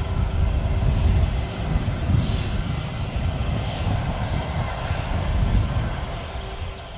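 Airbus A320's twin jet engines running as the airliner rolls past on the runway: a steady low rumble with a faint hiss above it, easing slightly near the end.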